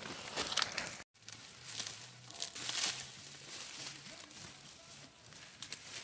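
Rustling and crinkling of dry corn stalks and plastic sacks as ears of corn are picked by hand and put into the sacks, with a brief dropout about a second in.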